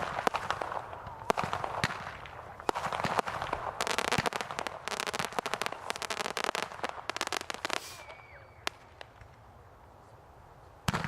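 Consumer fireworks going off in a show: repeated bangs and a dense run of crackling from about four seconds in. The crackling dies away near eight seconds to a few scattered pops, and a loud bang comes near the end.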